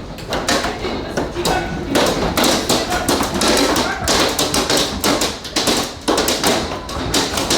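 Hailstones pelting a hard surface in a dense, irregular barrage of sharp taps and thuds, many strikes a second.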